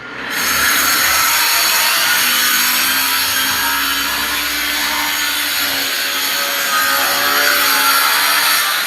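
A power tool running steadily with a loud, rough noise, starting suddenly just after the beginning.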